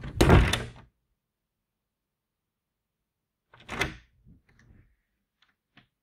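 Large cabinet door being worked open and shut: a loud impact right at the start, a second, softer one about three and a half seconds in, then a few light clicks.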